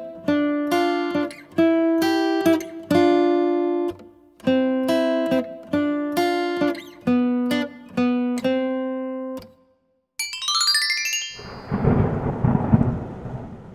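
Intro music: a plucked-string melody played note by note, stopping about nine and a half seconds in. After a brief gap comes a quick rising electronic sweep, then a crackling, thunder-like rumble sound effect.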